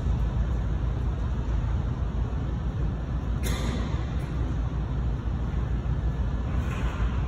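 A steady low rumble throughout, with one sharp knock about three and a half seconds in.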